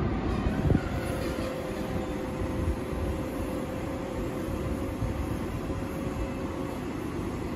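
Škoda ChS4t electric locomotive pulling a passenger train slowly out of a station: a steady low rumble of wheels on rail under the locomotive's running drone, with a faint steady whine above it. A single knock sounds less than a second in.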